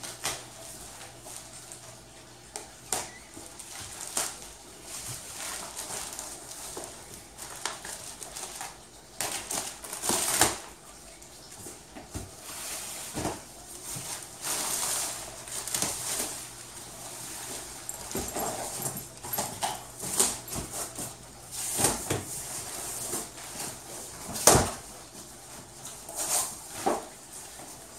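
Cardboard box and plastic wrap being torn open and handled: rustling, scraping and a string of sharp knocks. The loudest knocks come about ten seconds in and near the end.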